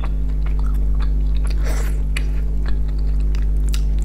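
Chewing fried fish with its crisp skin, many small crackling clicks, over a steady low hum.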